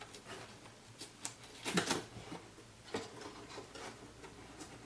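Light taps and rustles of matboard pieces being handled, with a louder rustle about two seconds in and a sharper tap about three seconds in, as a glued construction strip is lifted to be re-adhered.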